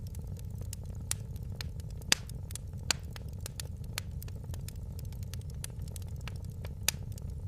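Fireplace fire crackling: a steady low rumble of flames under frequent small snaps, with louder pops about one, two and three seconds in and again near the end.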